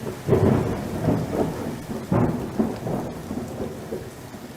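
Rainstorm noise: steady rain with repeated low rumbling surges that come and go irregularly, from thunder or storm gusts.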